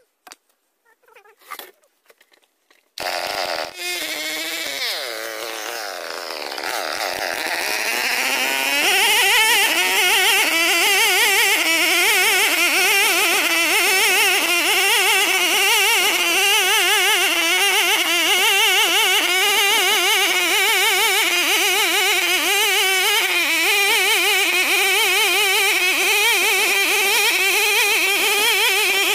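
A few faint scrapes, then a two-stroke chainsaw, a Chinese-made copy of the Stihl 070 fitted with a blunt chain, cuts in suddenly about three seconds in. Its engine drops in pitch as the bar bites into the ironwood, then it runs steadily under load, pitch wavering slightly, while ripping a lengthwise cut along the timber.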